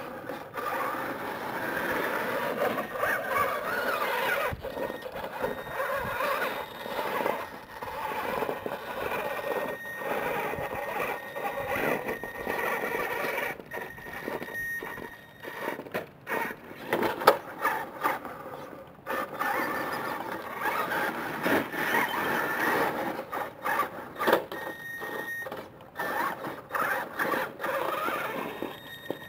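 Electric motors and drivetrain of a Traxxas E-Maxx RC monster truck whining in stop-start bursts of throttle as it crawls over rock.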